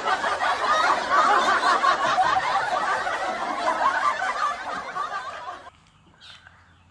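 Laughter, snickering and chuckling, that cuts off suddenly near the end.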